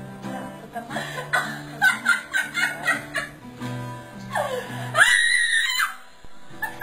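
Acoustic guitar strumming under loud, hysterical laughter. About four and a half seconds in comes a long high-pitched shriek of laughter, the loudest sound, and the guitar stops for a moment after it.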